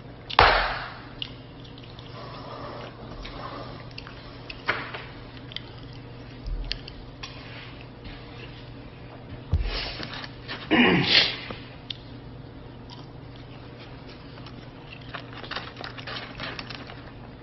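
A hand strikes a large plastic drink cup once, sharply, right at the start; after that, quiet room tone with a low steady hum, scattered small knocks and rustles, and a louder noisy rustle about ten seconds in.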